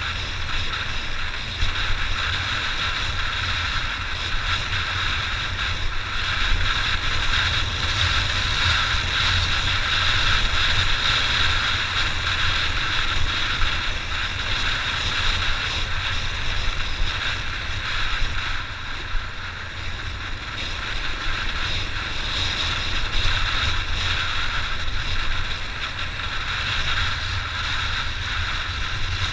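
Honda XR 600's single-cylinder four-stroke engine running steadily while the bike is ridden, mixed with heavy wind rumble on the microphone.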